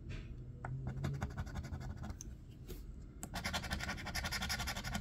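A coin scratching the coating off a Bingo scratch-off lottery ticket, in two spells of rapid short strokes, the second, about three seconds in, the louder.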